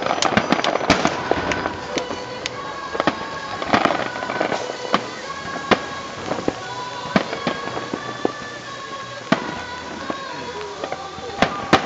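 Aerial firework shells bursting in an irregular run of sharp bangs, a cluster of them about a second in and more every second or two after. Music with held tones plays underneath.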